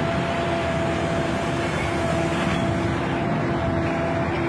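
Shore excavator with a hydraulic orange-peel grab running steadily: a constant engine and hydraulic hum over broad machinery noise as the grab closes on gravel cargo and lifts.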